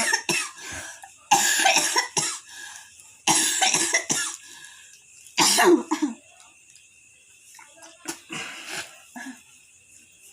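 A person coughing hard: four harsh coughing fits about a second and a half apart, then only faint sounds. It is a chronic cough that has lasted for years.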